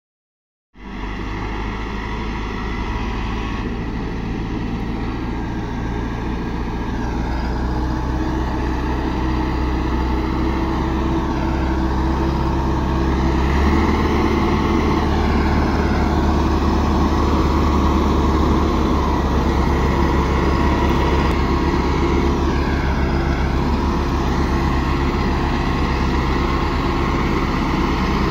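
Massey Ferguson 385 tractor's four-cylinder diesel engine running steadily under heavy load as it hauls an overloaded sugarcane trolley, growing louder as it approaches. The low engine note strengthens about halfway through.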